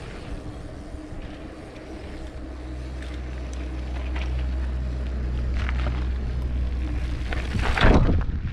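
A steady low engine drone that slowly grows louder, with a loud rush of noise near the end.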